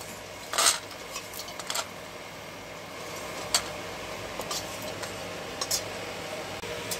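Flat metal spatula scraping and clinking against a steel wok while fried pieces are lifted out onto a steel plate: a few scattered scrapes and clinks, the loudest about half a second in, over a steady low hiss.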